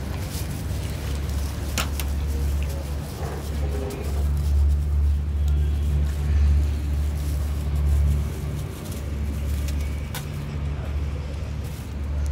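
Steady low engine rumble of a motor vehicle, louder between about four and nine seconds in, with a few sharp clicks.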